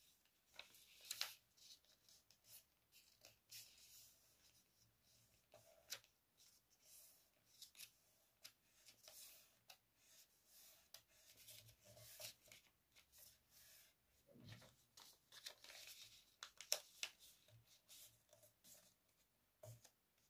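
Faint rustling and crinkling of a sheet of A4 paper being folded and creased by hand, in short, irregular rustles with hands sliding over it.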